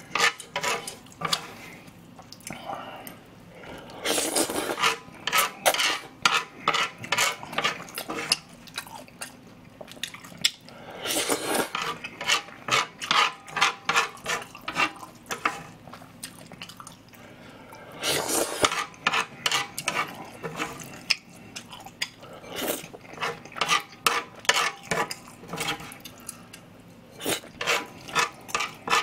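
Close-miked eating of chewy spicy jjolmyeon noodles: repeated slurps in runs of a second or two, between them a dense stream of wet chewing and mouth-smacking clicks.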